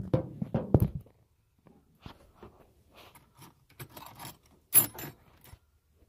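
Tools and loose items being handled and rummaged through in a pickup truck bed: a run of metallic clinks, knocks and rattles, with a dense clatter in the first second and a sharp clink about five seconds in.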